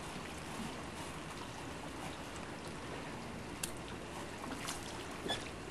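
Water trickling and lapping against the boat, with a few sharp light clicks in the second half.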